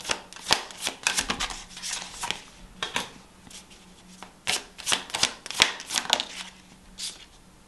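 A deck of tarot cards being shuffled by hand: a string of short, crisp card flicks, close together for the first few seconds, then more spread out.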